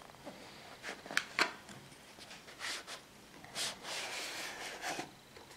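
Cardboard inner tray of a smartphone box sliding out of its sleeve: a few light clicks of handling, then soft scraping rubs of cardboard on cardboard.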